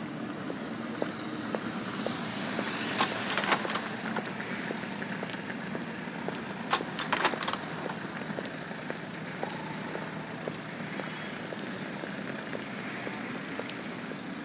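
Footsteps at a steady walking pace over a constant background hiss, with two short flurries of sharp clicks and crackles, about three and seven seconds in.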